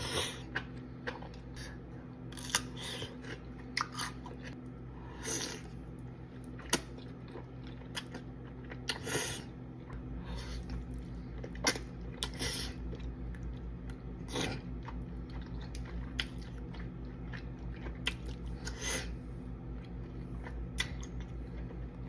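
Close-miked mouth sounds of someone eating: chewing and biting with irregular sharp wet clicks, smacks and crunches, over a steady low hum that strengthens about halfway through.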